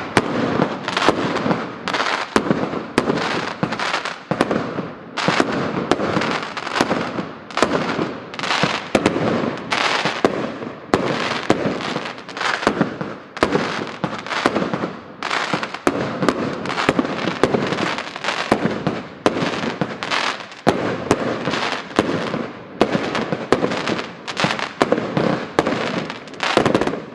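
A 36-shot, 25 mm consumer firework battery (cake) firing: a steady, rapid run of sharp bangs from launching and bursting shells, about one to two a second, with a noisy wash between them.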